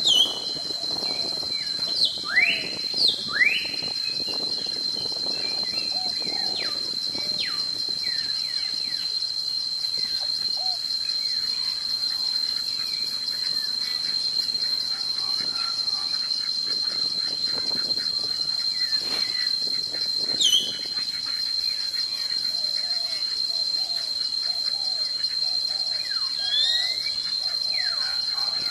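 A steady, high-pitched insect drone pulsing rapidly, with a bird's sharp falling whistled calls cutting through it, a few around two to three seconds in, one at about twenty seconds and a couple near the end.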